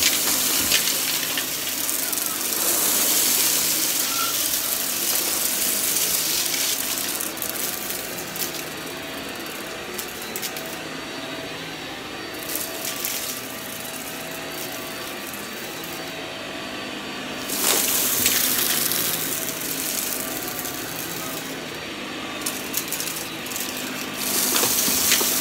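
Upright vacuum cleaner running on carpet, growing louder and fainter as it is pushed forward and pulled back. Small debris, grit and bits rattle and click as they are sucked up.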